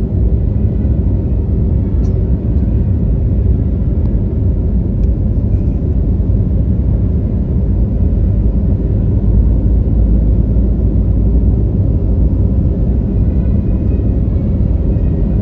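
Steady low rumble of a passenger jet in flight, heard inside the cabin: engine and airflow noise.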